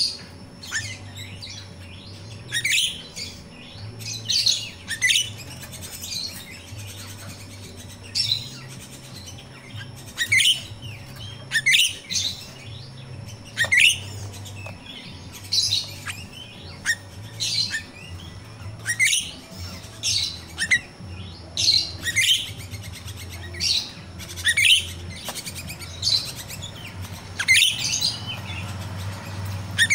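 Grosbeak starling (jalak rio-rio) calling: sharp, high-pitched call notes that slide downward, repeated roughly once a second over a faint low hum.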